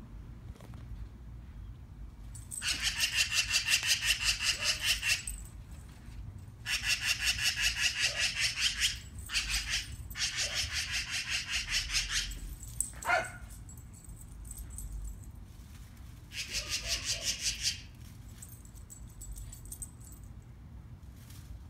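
Magpie chattering: harsh, rapid rattles of about six notes a second, in four or five bouts of one to two and a half seconds, which the owner calls laughing. A single short falling cry sounds about thirteen seconds in.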